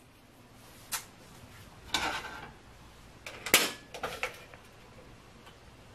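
Kitchen clatter of pans and utensils being handled at the stove: a few scattered knocks and clinks, the loudest about three and a half seconds in.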